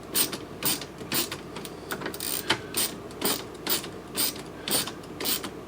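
A hand tool clicking sharply about two times a second as it backs out the adjusting screws on a Fridge Fixer refrigerator door latch bar.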